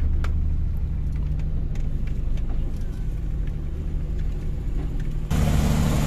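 Diesel engine of a concrete transit mixer truck running steadily with a low hum. About five seconds in it cuts abruptly to a louder, hissier noise of a shotcrete machine spraying concrete.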